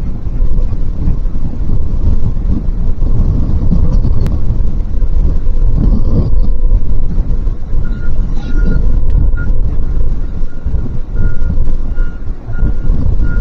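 Steady loud low rumble of wind buffeting an outdoor microphone, with a faint high electronic beep repeating about twice a second from a little past halfway through, like a ground vehicle's reversing alarm.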